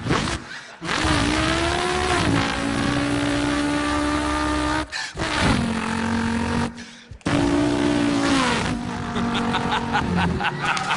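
A man's vocal impression of a Holden Torana V8 revving and running through the gears: long held engine notes that drop in pitch at each shift, broken twice by short pauses, with a run of quick crackling pops near the end.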